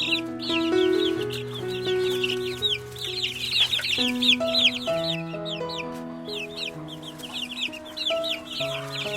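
A group of baby chickens peeping: a rapid, overlapping stream of short, high chirps that each fall in pitch. Background music of long held notes plays underneath.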